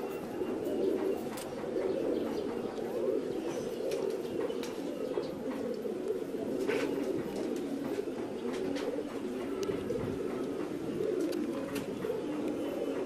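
Domestic fancy pigeons cooing steadily, several birds' low coos overlapping with no break, with a few faint clicks among them.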